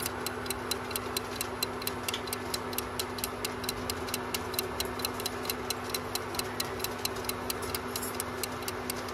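Fast, even clock ticking, about four or five ticks a second: a stopwatch tick sound going with the on-screen timer. Under it runs a steady low hum and hiss from an induction cooktop on full power heating a pan of water.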